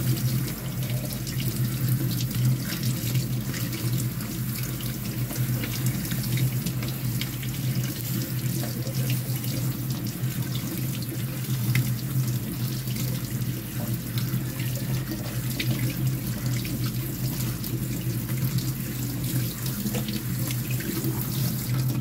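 Tap water running steadily from a spray-head faucet onto chopped banana blossom in a plastic basket over a stainless steel sink, while hands rub and squeeze the pieces to rinse out the salt and bitterness.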